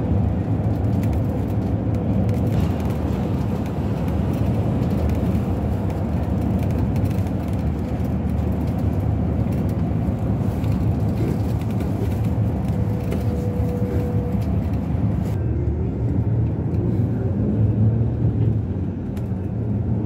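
Steady road and engine rumble of a moving vehicle, with tyre hiss on top that drops away about three-quarters of the way through.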